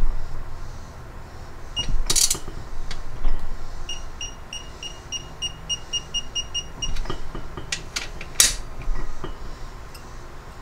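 A few sharp metal clicks and clinks of hand tools working bolts. From about four seconds in, a run of short high electronic beeps goes for about three seconds, about four a second.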